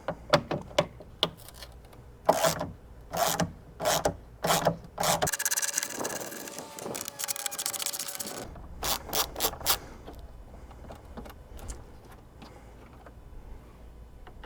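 Hand ratchet with an extension and T40 Torx socket backing out bolts: a series of separate sharp clicks and knocks, then about three seconds of rapid continuous ratcheting, then a few more clicks before it goes quieter.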